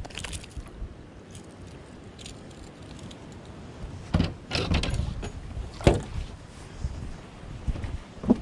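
Scattered knocks, clatter and thumps on a bass boat's deck as a just-caught largemouth bass is handled and unhooked, with a cluster of knocks about four seconds in and a sharp knock near six seconds.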